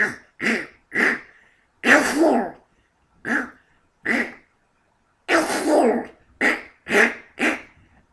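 A man imitating Donald Duck sneezing over and over in a chain he can't stop: about ten short voiced sneezes in a row, with two longer ones about two and five seconds in.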